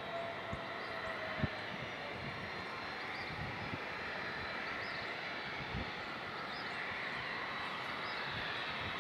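Jet engines of a twin-engine airliner on landing approach: a steady rushing hum that grows slowly louder as the aircraft nears, with a few brief low thumps.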